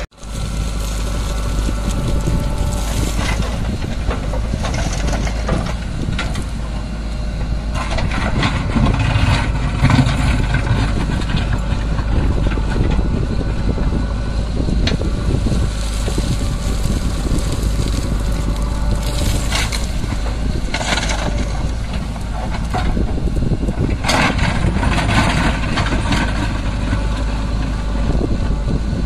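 JCB backhoe loader's diesel engine running steadily while its bucket digs into stony soil, with scraping and crunching of rock against the steel bucket at intervals.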